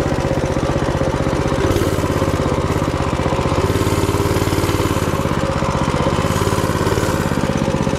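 Minibike's small engine running steadily as the bike is ridden along a trail.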